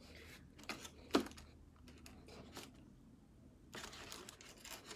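Spoon scraping and clicking in a foam takeaway container as food is scooped, with the foam lid creaking and some crinkling. A sharp click comes a little over a second in, and a denser run of scraping near the end.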